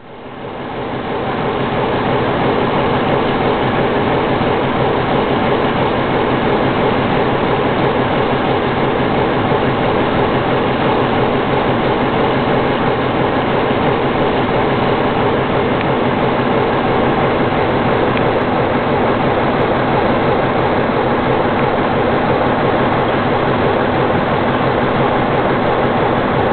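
Sulzer diesel engine of a Romanian-built Electroputere diesel locomotive running loudly and steadily at close range. The sound swells up over the first second or two, then holds at one even pitch.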